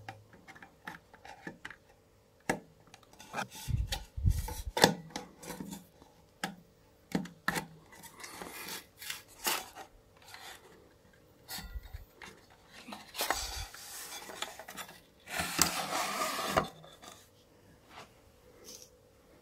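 A router's circuit board and heatsink being slid back into its casing: irregular clicks and knocks, with longer scraping about two-thirds of the way through, the loudest a second-long scrape near the end.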